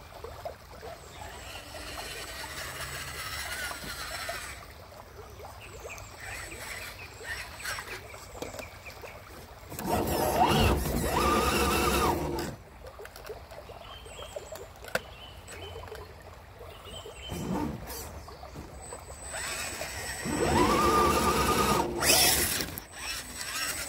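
The electric motors and gear drives of RC scale crawlers whine as they drive over rough ground. The whine rises in pitch as they speed up, about ten seconds in and again near the end, with quieter rolling between.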